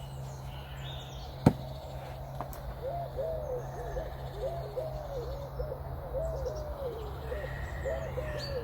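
A bird calling in a rapid, continuous run of short low notes that starts about three seconds in. About a second and a half in there is one sharp crack, the loudest sound.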